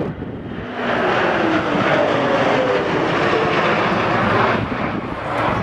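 C-17 Globemaster III's four turbofan jet engines roaring in flight. The sound swells about a second in, and a faint whine falls in pitch as the aircraft goes by.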